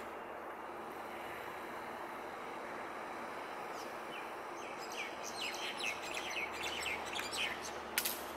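Birds chirping in a quick string of short high calls through the second half, over steady outdoor background noise; one sharp click near the end.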